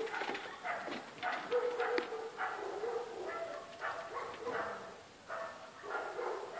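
A dog barking over and over, about two barks a second, with a short pause around five seconds in.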